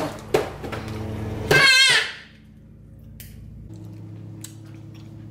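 A few sharp clicks, then a baby's short, high, wavering squeal about a second and a half in, followed by a low steady hum.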